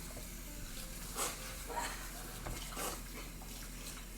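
Kitchen tap running steadily into a sink, with a few brief soft knocks or clinks.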